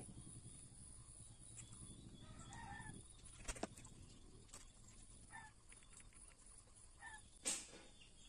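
Light sharp clicks of metal piston rings being handled: a pair about halfway in and the loudest near the end. Faint short bird calls sound a few times in between.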